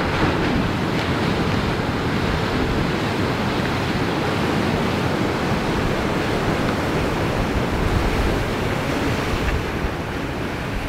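Ocean surf breaking and washing over jetty rocks in a steady roar, with wind gusting on the microphone.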